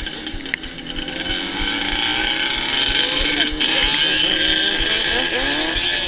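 Engines of ATVs riding a short way ahead, their pitch rising and falling as they rev, over a steady hiss of wind and tyres on a wet, slushy road.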